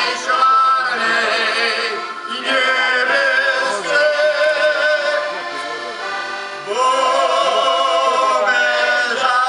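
Heligonkas, Slovak diatonic button accordions, playing a folk tune together while a group of voices sings long held notes with vibrato, in phrases broken by short breaths about two seconds in and again near seven seconds.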